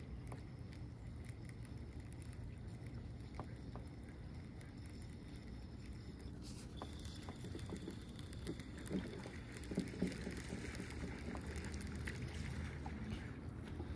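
Soft clicks and knocks from a baitcasting reel and rod being handled in a kayak, over a steady low rumble. The knocks come more often in the second half, the loudest about nine to ten seconds in.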